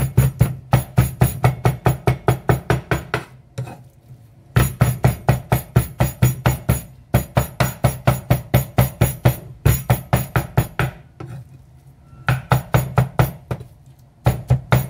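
Chinese cleaver chopping raw shrimp on a thick round wooden chopping block: rapid, even knocks about six or seven a second, in runs broken by short pauses, the longest just over a second near the end.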